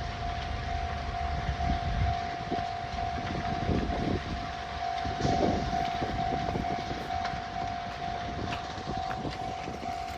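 Japanese level-crossing warning bell ringing with a steady, rapidly repeating tone while a train, apparently a freight train, passes over the crossing. A low rumble fades about two seconds in, followed by scattered rumbles and wheel clacks.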